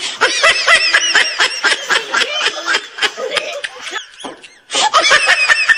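Women laughing hard in rapid, high-pitched bursts, with a short break about four seconds in before the laughter picks up again.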